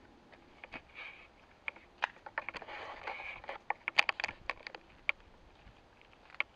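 Irregular clicks and light scrapes from walking with a handheld camera and microphone rig, with a short rustle about three seconds in and a cluster of sharper clicks around the middle.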